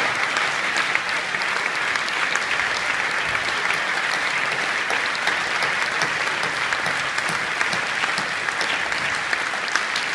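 A large cinema audience applauding steadily, many hands clapping at once.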